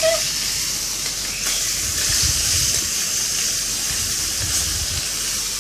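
Food frying in hot oil in a pan: a steady sizzle.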